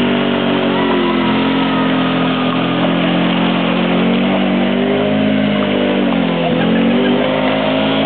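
A vehicle engine running hard, its pitch rising and falling as it speeds up and slows, with a deep dip about six and a half seconds in before it climbs again.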